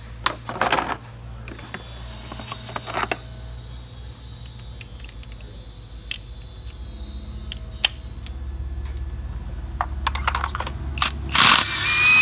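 Scattered clicks and clatter of hand tools and sockets being handled. Shortly before the end a cordless gun runs for under a second with a rising whine, spinning out the spark plug.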